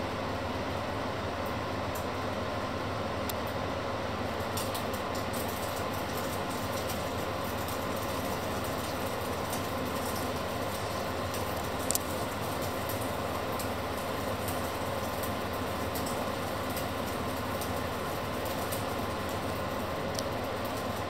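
Electric tower fan running steadily: an even whir with a low hum and a faint steady whine. A single short click about twelve seconds in.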